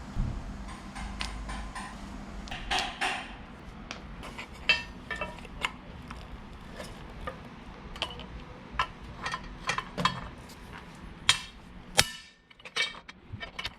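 Irregular metallic clicks and knocks of hand tools on the propeller shaft under a Porsche Cayenne, a few louder clanks among lighter taps; a low hum stops about two seconds in.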